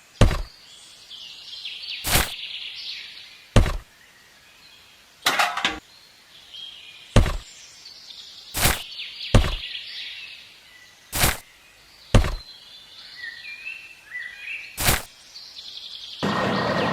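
About ten sharp, separate knocks or thunks, a second or two apart at an uneven pace, with faint bird chirps between them. A loud, steady mechanical noise comes in near the end.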